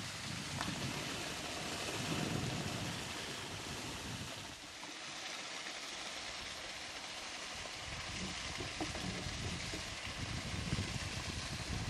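Outdoor ambience: a steady hiss with gusty low rumble of wind on the microphone, which drops briefly about four and a half seconds in.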